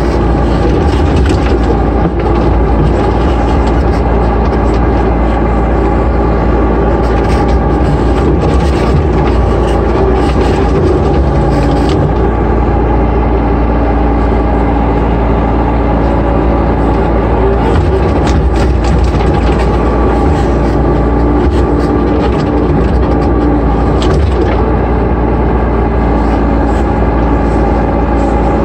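A 5-ton Sunward mini excavator's diesel engine running steadily under load, heard from inside the cab, as the boom and bucket dig. A few sharp knocks come through a third of the way in, around two-thirds in, and near the end.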